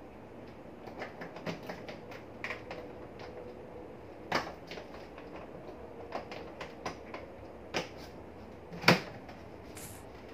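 A hard plastic scooter side box being packed and handled: rustling, scattered clicks and knocks of gear and the box shell, with two louder knocks, about four and about nine seconds in.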